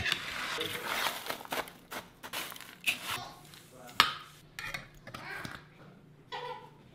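Crunchy homemade granola being scooped with a metal spoon from a metal baking sheet and tipped into a large glass jar. Dry clusters rustle and pour, with sharp clinks of metal on metal and glass, the loudest about four seconds in.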